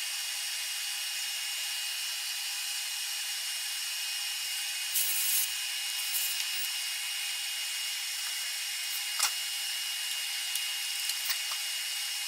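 Compressed-air blow gun hissing steadily as it blows chips out of freshly tapped 1/4-20 holes in an aluminium block. There is a brief louder spurt about five seconds in and a few small clicks later.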